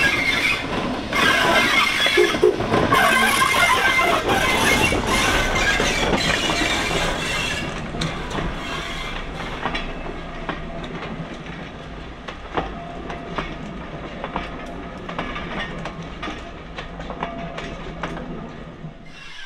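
Steam-hauled train passing on the rails: loud for the first half, then dying away, with a run of wheel clicks over the rail joints as the train goes by.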